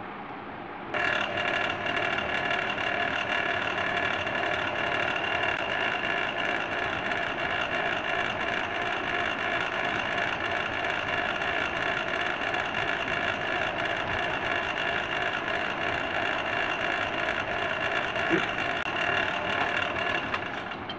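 Bench drill press motor switching on about a second in and running steadily with a whine, turning the valve in its seat in an aluminium engine head to grind it in. It stops just before the end, with a short knock shortly before it stops.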